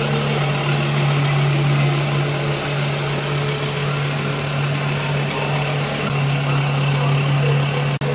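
A machine running steadily: a constant low hum with an even hiss over it, broken by a brief cut near the end.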